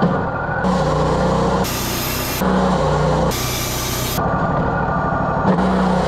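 Wood-Mizer LT40 portable band sawmill running, its engine steady while the band blade cuts through ponderosa pine. The sound jumps abruptly about once a second, as short spliced clips alternate between louder and quieter stretches of the cut.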